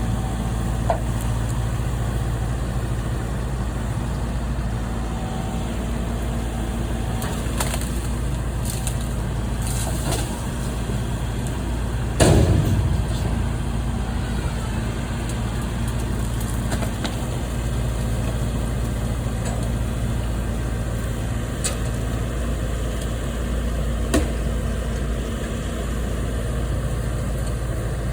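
A large engine running steadily at a low hum, with a single loud crash or impact about twelve seconds in and a few lighter knocks.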